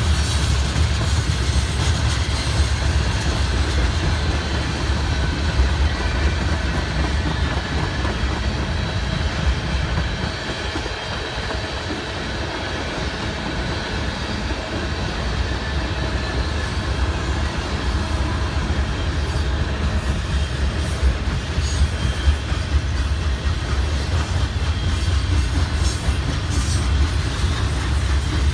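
Freight cars of a manifest train rolling past: a steady low rumble of steel wheels on rail with clickety-clack, easing briefly a little after a third of the way in. Scattered sharp clicks come in the later part.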